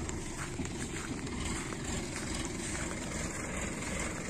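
Sonalika tractor's diesel engine running steadily as it pulls a trailer fully loaded with paddy, a continuous low rumble.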